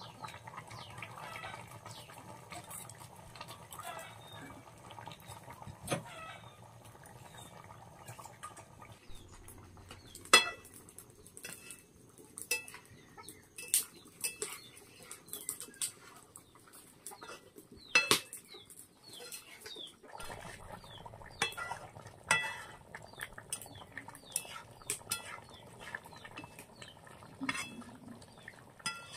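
Metal pots, dishes and utensils clinking and clanking now and then, two clanks much louder than the rest, with chickens clucking in the background.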